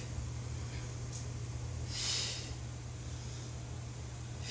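A woman breathing out hard through the mouth or nose in time with an exercise, two breaths about two and a half seconds apart, over a low steady hum.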